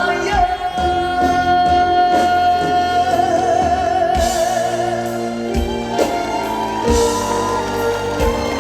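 Male trot singer holding the long last note of a sung line over a live band, the note wavering into vibrato before it ends about four seconds in; the band then plays on without voice.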